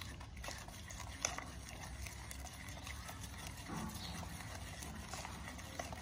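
Metal spoon stirring a thick gram-flour batter in a small steel pot: soft wet mixing with scattered light clicks of spoon against steel, the sharpest about a second in.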